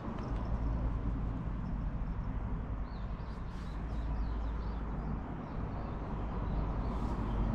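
Outdoor ambience: a steady low rumble, with a few faint bird chirps about three to four seconds in.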